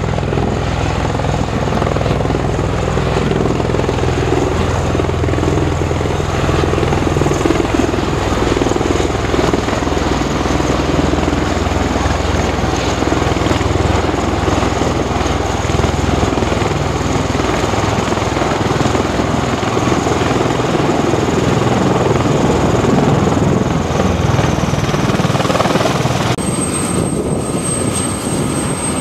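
MV-22 Osprey tiltrotor in helicopter mode hovering low over a ship's flight deck to land: loud, steady rotor and turboshaft engine noise. Near the end it cuts to a UH-1Y Huey helicopter running on deck with its rotors turning.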